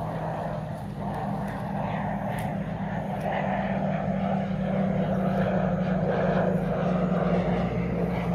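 A Republic of Singapore Air Force training aircraft flying past, a steady engine drone that grows gradually louder as it approaches.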